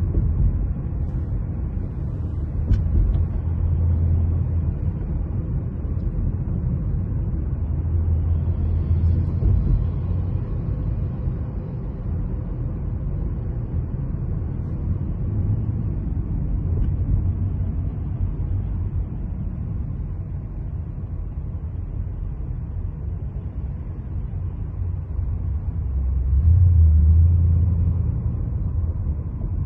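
Car driving noise: a steady low rumble of tyres and engine, swelling louder a few times, most of all near the end.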